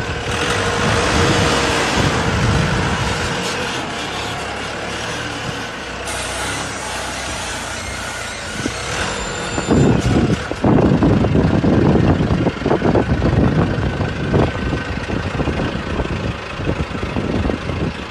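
Diesel engine of a self-loading concrete pan mixer running as the machine drives, with an even hiss at first and loud, irregular low rumbling surges from about ten seconds in.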